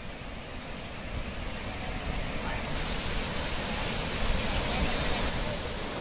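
Rushing water: a steady, even noise that grows gradually louder.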